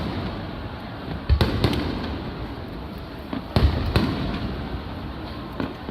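Aerial firework shells bursting overhead: sharp booms, most in quick pairs about a second to two apart, each trailing off in a rumbling echo.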